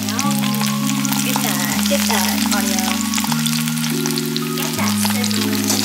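Salmon fillets sizzling and crackling in hot oil in a nonstick frying pan, over background music with slow-changing sustained chords.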